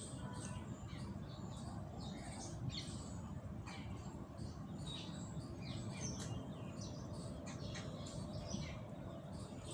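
Small birds chirping, many short high chirps overlapping at an irregular pace, over a steady low background rumble.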